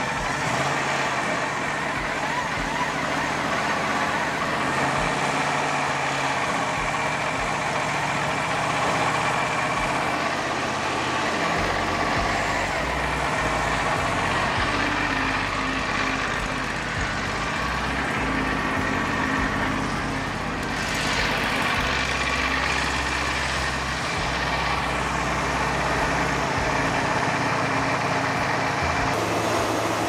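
Wood-Mizer LT40 Wide portable sawmill running steadily, its engine driving the band blade through a monkey pod log; the low hum of the machine shifts about twelve seconds in.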